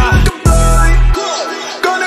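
Background hip hop music with a heavy bass beat. The bass cuts out a little over a second in, leaving only the higher parts of the track.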